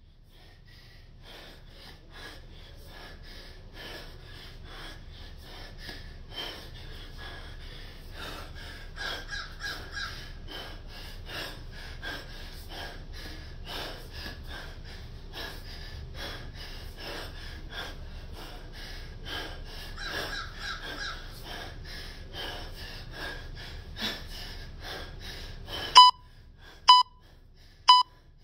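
A man panting hard and fast through the mouth during sustained kettlebell snatches, a few breaths a second. Near the end, an interval timer gives three short beeps about a second apart, counting down.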